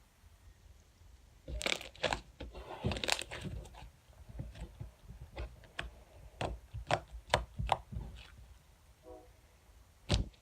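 Homemade slime being squished and stretched by hand, giving a run of wet clicks and small popping bubbles, with the busiest stretch about two seconds in and a loud pop near the end.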